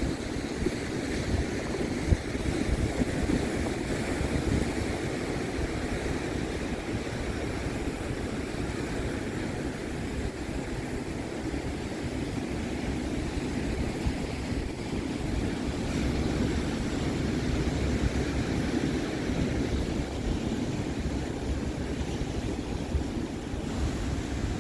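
Pacific Ocean surf breaking and washing onto a sandy beach, with wind on the microphone adding a low rumble. It is a continuous wash of noise that swells a little as waves come in.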